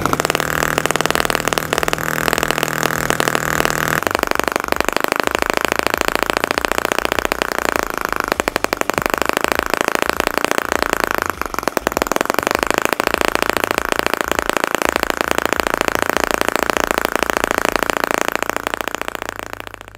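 Miniature horizontal two-cylinder model engine running at a fast, steady rapid putter. It fades out near the end.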